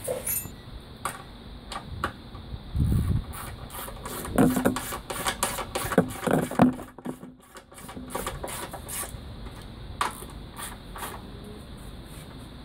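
Hand ratchet with a 13 mm socket clicking on the radiator support bracket bolts, with irregular metallic clinks and knocks of the tools against the brackets. The loudest cluster of knocks comes in the middle.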